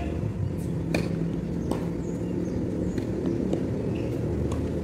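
Steady low outdoor rumble, with about five sharp clicks scattered through it.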